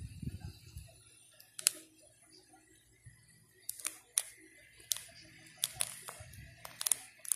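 Clear plastic coin-album pockets crackling and clicking as fingers press on and handle the coins inside them. One sharp click comes about a second and a half in, then a run of quick clicks through the second half.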